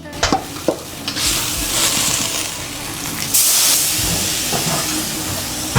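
Fish frying and sizzling in a hot wok. A few sharp clinks of a spatula on the wok come in the first second, and the sizzle swells about three seconds in.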